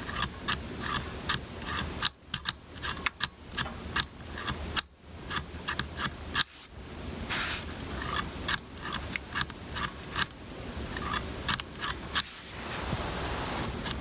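Mechanical keyboard switches clicking and clacking at an irregular pace, with some scraping and handling noise between the clicks.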